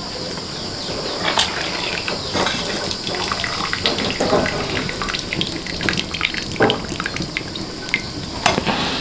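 Hot broth dripping and splashing back into a pot as a whole boiled chicken is lifted out of it, with scattered small clicks and knocks.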